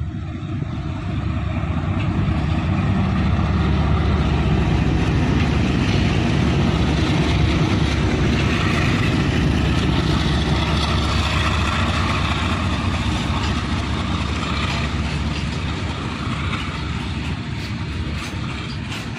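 Two WDG4G diesel-electric locomotives, each with a GE Evolution 12-cylinder diesel engine, running past under power with a deep, loud engine rumble. It swells as they draw level and eases off as the train's covered freight wagons roll by on the rails.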